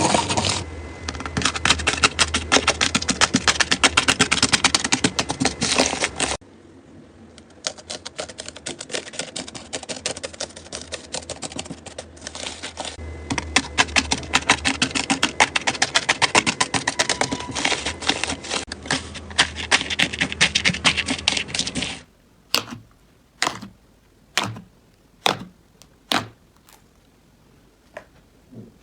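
Slime being worked by hand, giving dense crackling and clicking. The sound cuts to a softer crackle after about six seconds. Near the end it changes to separate sharp pops about once a second.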